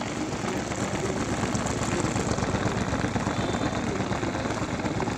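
A switched-on motor running steadily, with a low rumble and a fine rattle.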